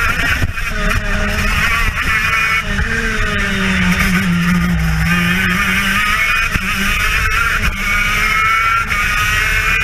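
TM KZ10B two-stroke kart engine at race speed, its pitch dropping through a corner about four to five seconds in, then climbing steadily as it accelerates onto the straight.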